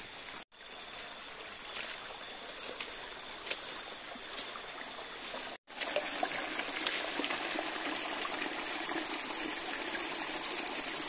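Running water trickling steadily, like a small stream, with two brief cuts to silence; it is a little louder after the second cut, about halfway through.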